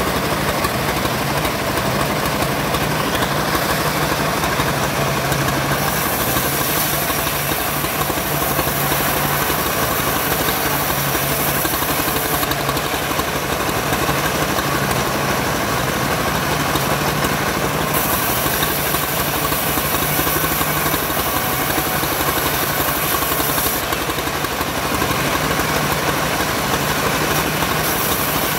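Homemade bandsaw mill running steadily under engine power, with stretches of high hiss lasting about six seconds each, several times over, as the blade rips through sengon timber.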